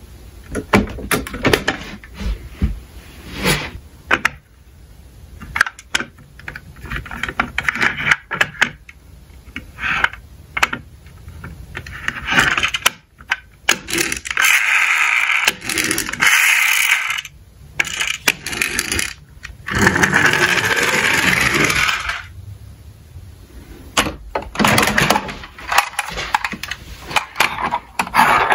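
Small toy cars clicking and clattering as they are handled and knocked against one another and the slope, with a couple of stretches of rolling noise, a few seconds each, as cars run down the slope.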